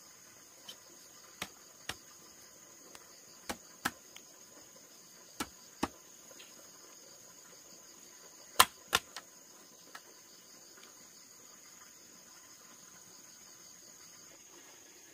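Insects trilling steadily in a high, even chorus, with a series of sharp knocks of bamboo poles as the bamboo frame is handled, mostly in pairs, the loudest pair a little past the middle.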